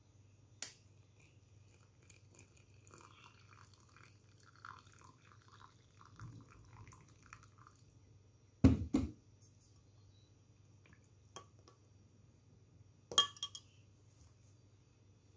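Quiet room with a steady low hum, broken by two dull knocks close together about nine seconds in and a brief ringing clink about thirteen seconds in.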